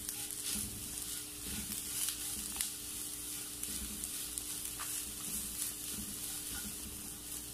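A wooden spatula stirring and scraping a grated-coconut mixture with curry leaves in a nonstick pan, with a light, steady sizzle of frying in coconut oil. A steady low hum runs underneath.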